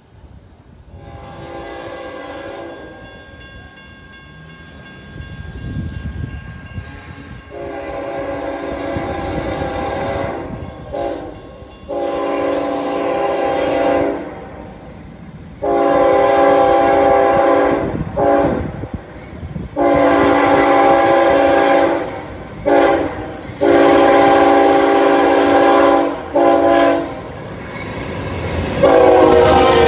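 Amtrak passenger train approaching and sounding its multi-chime locomotive horn in a series of long blasts broken by a few short ones, growing louder as it nears, over the low rumble of the train.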